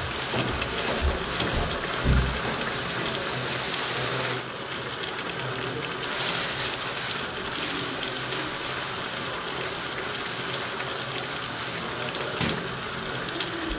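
A big pot of plov rice and water boiling in a cast-aluminium kazan, a steady bubbling hiss. It is louder for the first few seconds and again briefly around six seconds in.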